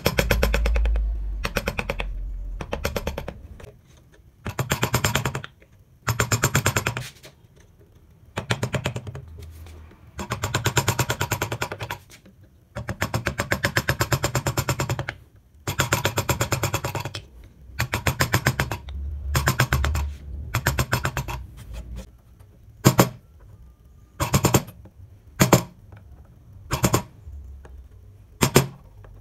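Wooden mallet rapidly tapping a wood-carving chisel through the wood in quick runs of taps lasting a second or two. Near the end the runs give way to single, harder blows about a second apart.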